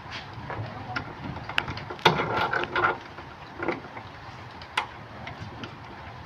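Metal parts of a bearing puller being handled and fitted: scattered sharp clicks and knocks, with a short clattering run about two seconds in.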